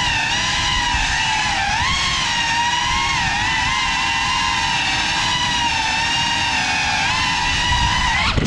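GEPRC Cinelog 35 cinewhoop's brushless motors and ducted propellers whining steadily, the pitch rising and dipping slightly with throttle. The whine cuts off suddenly at the very end.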